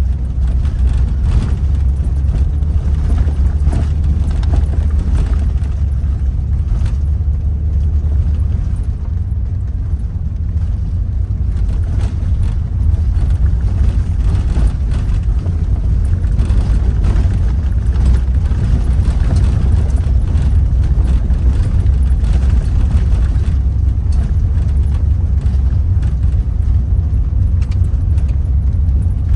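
Steady low rumble of a vehicle driving on a gravel dirt road, heard inside the cabin, with scattered faint clicks from the gravel under the tyres.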